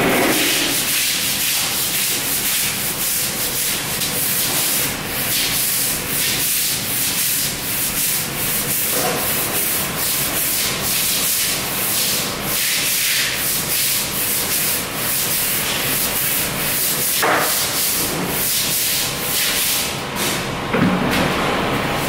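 Mop being scrubbed back and forth across a hard floor: a continuous run of short rubbing strokes.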